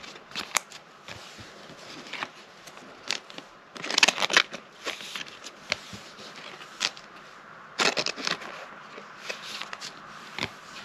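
Trading cards being handled and slid into soft plastic sleeves: scattered short swishes and light clicks, busiest about four seconds in and again near eight seconds.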